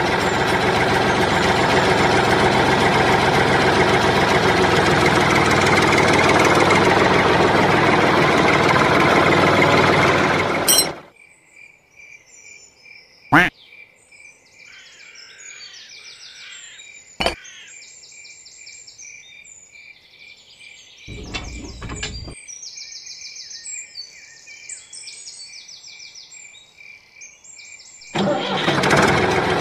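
A miniature DIY model tractor running with a loud, steady mechanical sound, which stops about eleven seconds in and starts again near the end. In between, birds chirp over a steady, pulsing high insect-like tone, with two sharp clicks as small parts are fitted by hand.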